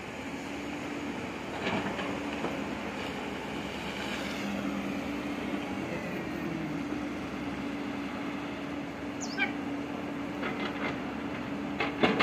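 Steady hum of a diesel excavator's engine working in the riverbed. A brief falling high whistle sounds about nine seconds in, and a few sharp knocks come near the end.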